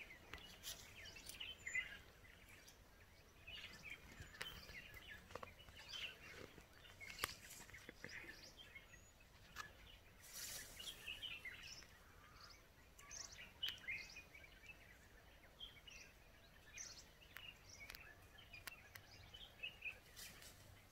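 Quiet ambience with scattered faint bird chirps and a few soft clicks over a low steady hiss.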